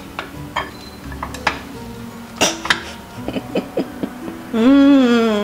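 A metal spatula clinks and scrapes against a glass pie dish in a few sharp clicks as a piece of baked apple cake is cut and lifted out, over background music. Near the end a voice hums a loud, drawn-out "mmm".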